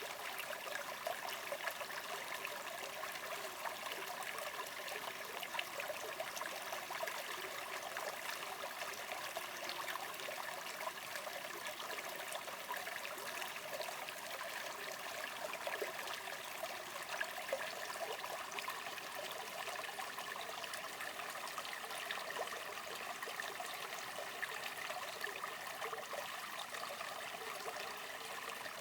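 Spring water running and trickling steadily from a natural spring.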